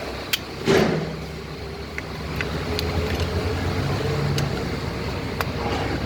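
Nissan Datsun's petrol engine running steadily at idle, now that a new distributor with its built-in cam sensor has cured the crank-no-start. A brief loud noise comes under a second in.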